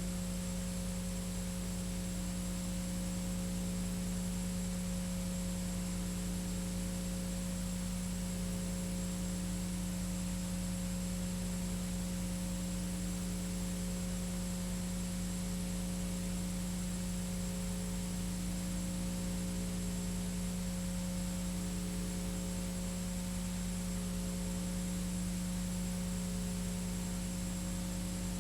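Steady electrical hum with an even hiss behind it, unchanging throughout and with no other events: the noise of a blank stretch of VHS tape being played back.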